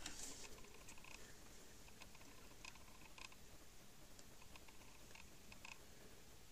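Near silence, with a brief rustle at the start and faint, scattered small clicks: handling noise as the metal chassis and camera are moved about.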